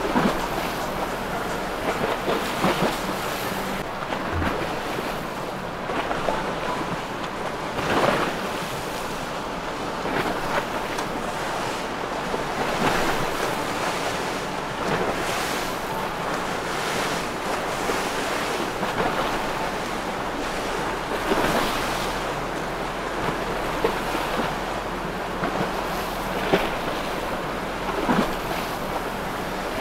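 Wind buffeting the microphone over the steady wash of waves and boat wakes, with irregular gusts and splashes throughout.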